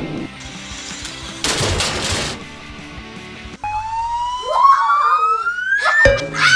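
Edited-in sound effects over background music: a short noisy burst, then a single whistle-like tone that rises steadily for about two and a half seconds and cuts off abruptly, followed near the end by a wavering, siren-like tone.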